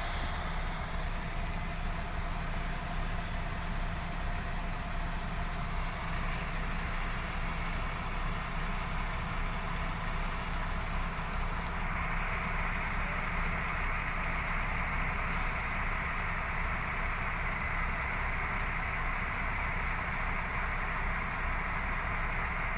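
Excavator's diesel engine running steadily, low and even, with a higher hiss that grows stronger about halfway through.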